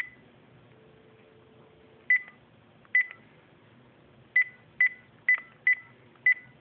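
Panasonic KX-TGA031 cordless phone handset beeping at each key press as a phone number is keyed in. There are eight short, high beeps: one at the start, then after a two-second gap seven more, coming faster, about two a second.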